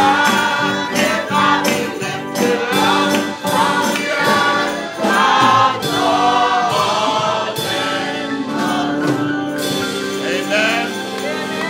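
Gospel worship song with a choir of voices singing over held chords and a rhythmic percussion beat, which eases off late on.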